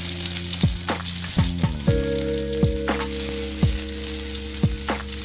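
Chopped shallots and garlic sizzling in hot oil in a wok, stirred with a metal spatula.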